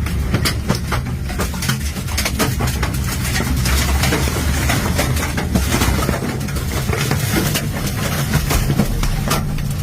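Tornado-force wind buffeting a vehicle as the storm passes overhead: a deep, steady rumble with a rushing noise over it, broken by frequent sharp knocks of debris striking the body and windows.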